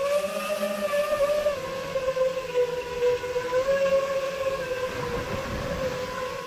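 Five-inch FPV freestyle quadcopter's brushless motors and propellers whining steadily, the pitch rising and falling a little as the throttle changes, heard from a camera on the drone. A short low rumble comes about five seconds in.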